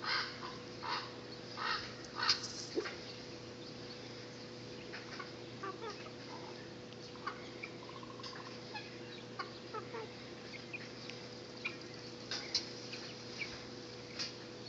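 A mixed backyard flock of chickens, guinea fowl and turkeys calling: four loud, short calls in the first couple of seconds, then many soft, scattered clucks and peeps.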